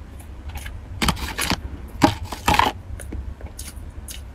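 Thin plastic food tray crackling and scraping as a cake roll is handled and pulled out of it, in two louder bursts about a second and two seconds in, with small clicks between.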